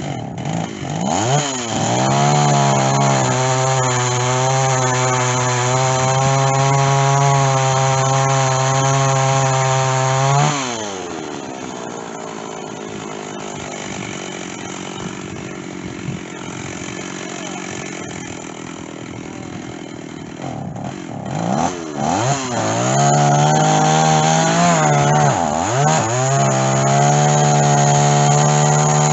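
Stihl chainsaw with a dull chain cutting white oak: it revs up and runs at full throttle for about eight seconds, drops back to idle for about ten seconds, then revs up again, wavering twice before holding full throttle.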